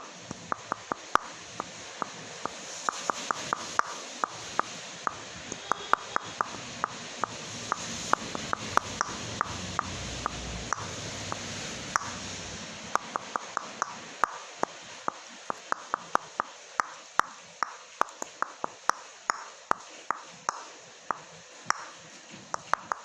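Coconut shells being tapped or knocked, giving a long, irregular run of sharp taps, roughly two to four a second, over a steady hiss.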